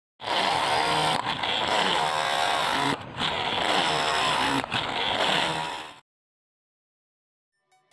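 Homemade cordless drill with a 775 DC motor running and its bit cutting into a piece of wood, a steady motor whine over cutting noise with a few brief dips, about six seconds long before it cuts off suddenly.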